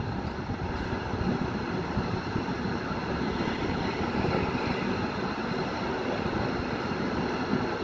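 Steady rolling noise and rushing air of a moving passenger train, heard at the open window of a coach.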